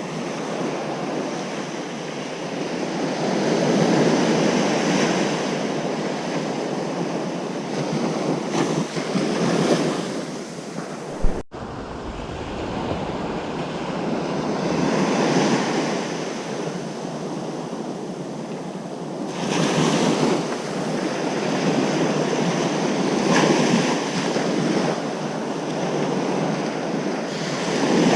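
Ocean surf breaking and washing on a beach, swelling and ebbing every few seconds. A short sharp click with a momentary dropout comes about eleven seconds in.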